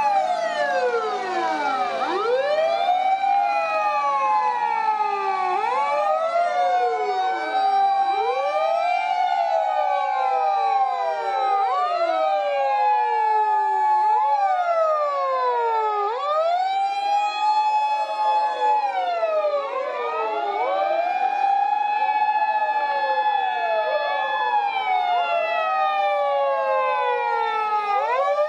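Sirens of several Japanese fire engines and police cars sounding together as the column drives past. Their overlapping tones rise, hold and fall again every few seconds, out of step with one another.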